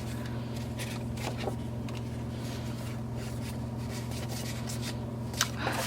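Steady low electrical hum with faint rustling and light ticks of paper cards being handled, one slightly louder rustle near the end.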